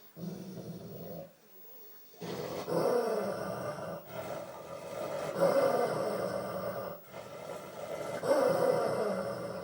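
A dog growling in three long growls, angry and guarding a moth that the owner wants to take from her.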